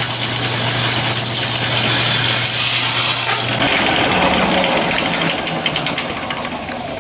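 Vertical band saw running and cutting through thin copper sheet: a steady motor hum under the noise of the blade. The sound changes about three and a half seconds in, then gradually gets quieter toward the end.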